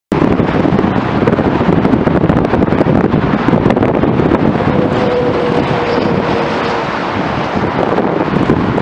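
Strong gusty wind buffeting the microphone, mostly covering a distant diesel-hauled freight train working uphill. A faint steady tone holds for about two seconds midway.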